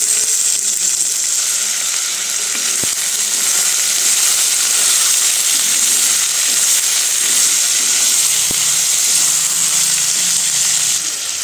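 Chopped onion, carrot, peas and tomato sizzling steadily in hot oil in an earthenware kadhai as they are stir-fried, with a spatula stirring and a couple of light knocks against the pot.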